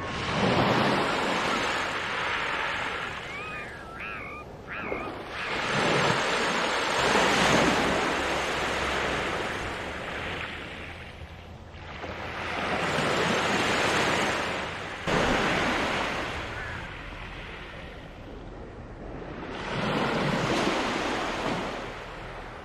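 Small waves washing onto a pebble beach, breaking and drawing back in four slow swells about six or seven seconds apart.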